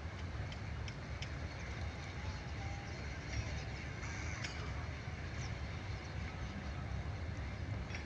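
Steady wind rumble on the microphone with faint, scattered bird calls and short chirps over it.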